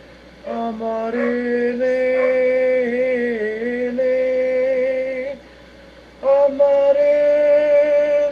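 A solo voice singing long held notes with slight vibrato, in two phrases separated by a pause of under a second about five and a half seconds in.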